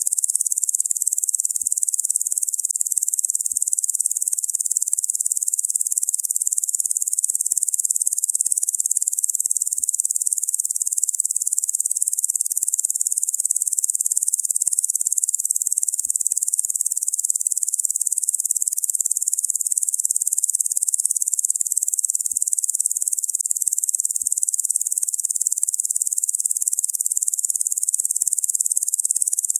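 Locusts buzzing: a steady, high-pitched insect chorus with no pauses.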